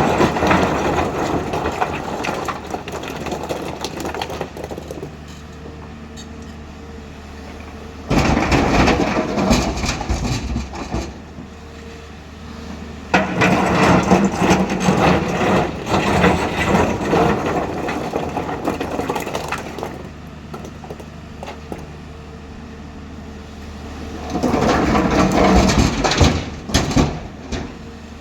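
Hyundai 215 excavator's diesel engine running steadily, with four long spells of loud crashing and grinding of boulders being loaded into a tipper truck's steel body.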